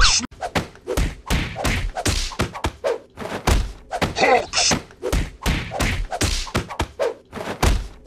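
A rapid, irregular run of cartoon punching sound effects on a toy house: thuds and whacks, about three a second.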